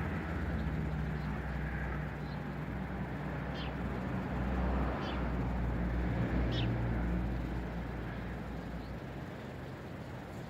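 Wind buffeting the microphone with a steady low rumble, and a small bird giving three short high chirps about a second and a half apart in the middle.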